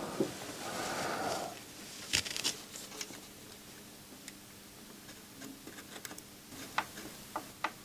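Faint, scattered clicks and taps from small tools and parts being handled during soldering work on an electronics circuit board. A soft rushing noise runs for the first second or so, a couple of sharper clicks come about two seconds in, and a string of small ticks comes near the end.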